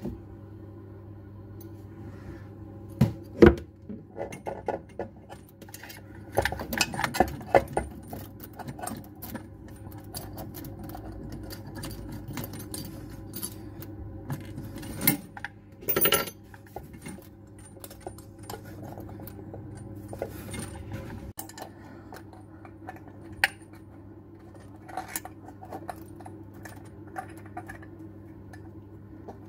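A spanner clinking on a basin mixer tap's fixing nut and braided steel flexible connectors as the nut is tightened. Irregular metal clicks and rattles, the loudest about three and a half seconds in and clusters near seven and sixteen seconds, over a steady low hum.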